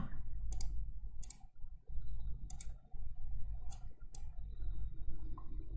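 A few separate computer mouse clicks, about five, spaced unevenly, over a steady low electrical hum.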